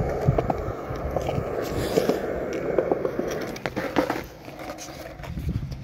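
Skateboard wheels rolling over concrete: a rumble with scattered clicks and knocks. It falls quieter about four seconds in, when the board is picked up.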